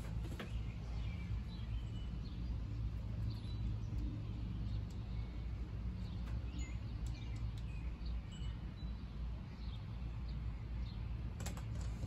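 Outdoor background: a steady low rumble with scattered faint bird chirps, and a few light clicks near the end.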